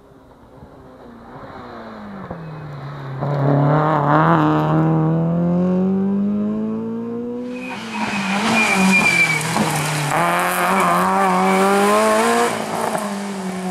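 A rally car's engine is heard approaching at high revs, growing louder. It drops in pitch as the car brakes, then climbs steadily under acceleration. About eight seconds in, a Peugeot 106 rally car is heard revving hard on loose gravel, with a loud hiss of tyres and stones spraying over the engine.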